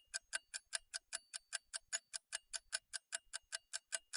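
Clock-ticking sound effect: evenly spaced, crisp ticks at about five a second over dead silence, typical of a ticking added over skipped or sped-up footage.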